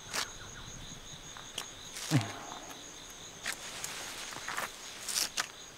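Crickets chirring steadily in the background, with a few soft footsteps and one short low sound falling in pitch about two seconds in.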